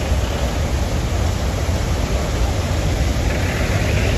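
Mountain river in flash flood, a muddy torrent rushing past in one steady, loud wash of noise over a deep rumble.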